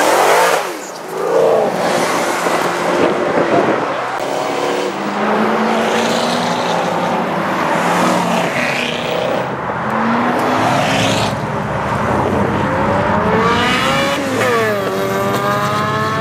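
Sports car engines accelerating and revving hard, the pitch climbing and falling several times. Near the end one engine climbs, drops sharply at a gear change, and climbs again.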